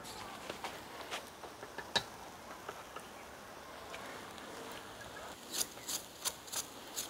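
Burger patties and spiral potatoes sizzling over a charcoal grill: a faint steady hiss with scattered small ticks, then a quick run of sharp crackles and pops near the end.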